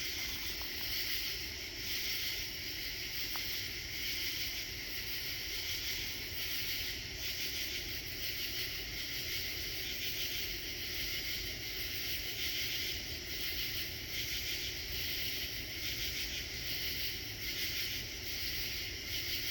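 A chorus of night insects calling steadily: a dense, high-pitched trilling that swells and fades in an even pulse, over a low rumble.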